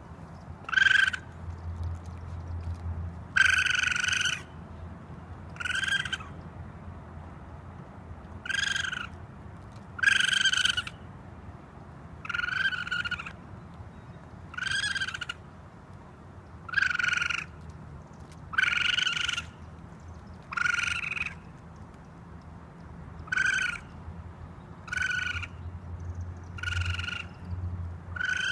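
Raccoon calling over and over: a short, high-pitched call about every two seconds, some held longer than others, over a faint low steady hum.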